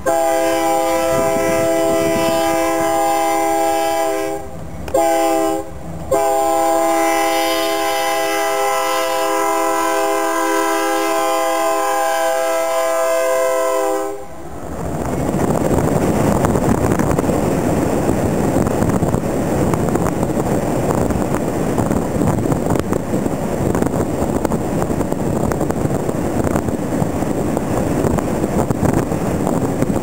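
Diesel locomotive's multi-chime air horn blowing a long chord, broken by two short gaps about four and six seconds in, and stopping about fourteen seconds in. After that, steady wind and road noise from a moving car running alongside the freight train.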